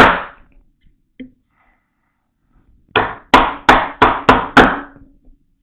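A mortise chisel struck on its head with a mallet, chopping a mortise into wood by hand. There is a single blow at the start, then a run of about six blows at about three a second.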